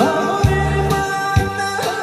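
Music with a steady beat: a low drum hit about once a second under held melody notes.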